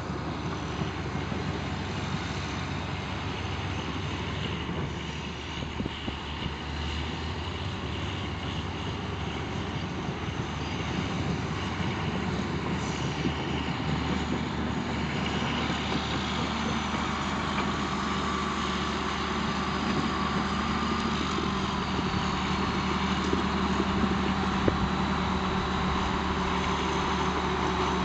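Diesel engine of a crawler dozer running steadily as the machine drives closer, growing gradually louder over the second half.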